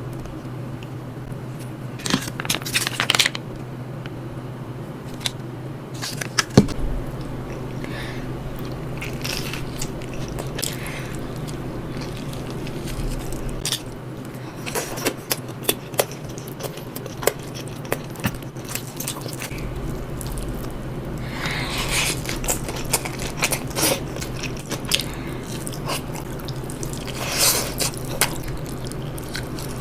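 Close-miked eating: bites, crunching and chewing, with scattered sharp clicks and scrapes, over a steady low hum.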